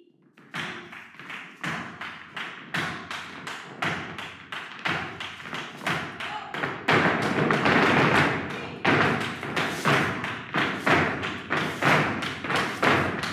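Rhythmic flamenco percussion: sharp strikes, about two to three a second, each ringing briefly in the room, getting louder and fuller about seven seconds in.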